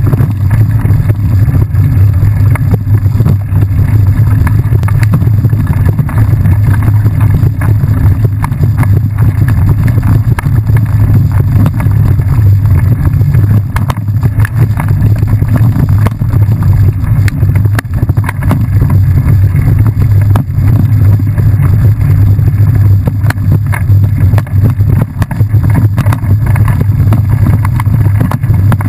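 Steady low rumble of wind buffeting the microphone, with tyre noise and small jolts from a bike riding fast along a rough dirt trail.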